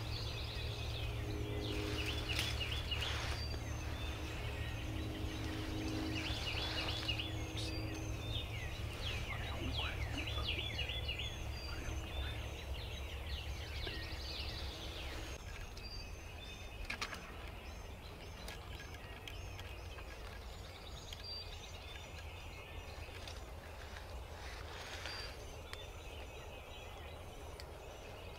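Wild turkey gobblers gobbling several times in the distance from their roost, over small songbirds chirping and a steady low rumble.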